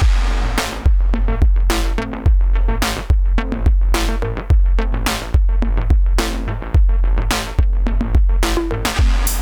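Electronic music played on hardware drum machines and synthesizers: a steady kick-drum beat over a deep held bass, with noisy snare-like hits that trail off in long tails of tape delay and reverb, and short synth notes between them.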